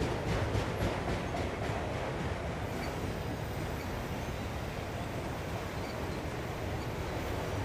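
Freight train of autorack cars rolling past: a steady rumble of steel wheels on rail, with a quick run of wheel clicks over rail joints in the first second or so.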